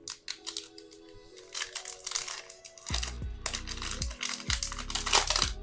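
Foil trading-card pack wrapper crinkling and tearing as a new pack is opened, over background music whose deep bass beat comes in about halfway through.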